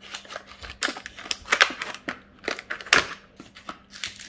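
Food packaging and kitchen items being handled: a quick, irregular run of crinkles, rustles and clicks.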